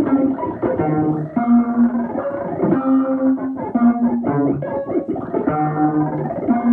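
Buchla Music Easel synthesizer, patched with a Portabellabz 208 ToolBox, playing a sequenced run of plucky pitched notes. The notes step to a new pitch about every half second, and rising sweeps run through the upper tones.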